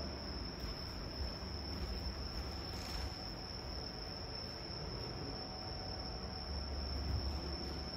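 Steady high-pitched trill of crickets, unbroken throughout, over a low background hum.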